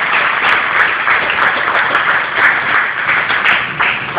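Stadium crowd applauding, a dense steady patter of many hands clapping that fades right at the end.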